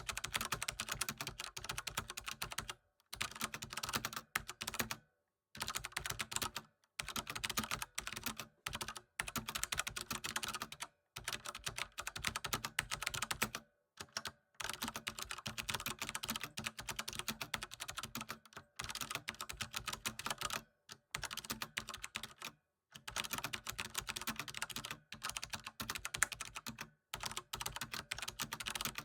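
Fast typing on a computer keyboard: dense runs of key clicks broken by brief pauses every few seconds.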